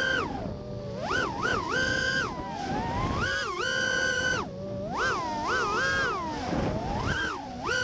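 Small FPV racing quadcopter's brushless motors whining, heard from the onboard camera. Several tones swing up and down in pitch together as the throttle is punched and released, with brief held high bursts about two and four seconds in.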